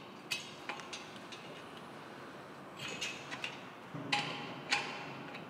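A 17mm open-ended spanner working the brass airline hose fitting on the blaster: a series of faint metallic clicks and clinks as the nut is tightened, two of them ringing briefly about four seconds in.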